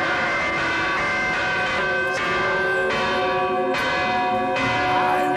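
Church bells pealing in a Spanish-style repique, struck again about once a second, each stroke ringing on and overlapping the next.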